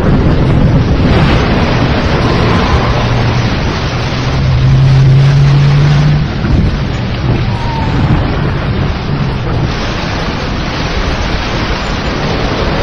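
Thunderstorm: steady heavy rain, with a low rumble of thunder that swells about four seconds in and fades by six.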